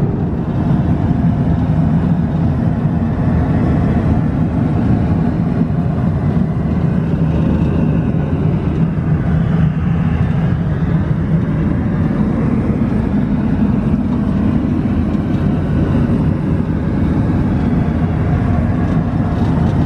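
Steady cabin drone of an Airbus A330-200 in cruise: engine and airflow noise, mostly a low rumble with a faint steady hum.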